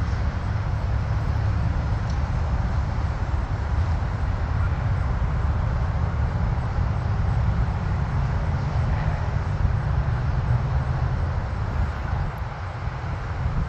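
Jet engines of a departing jet climbing away after takeoff: a steady deep roar and rumble that eases off a little near the end as the aircraft recedes.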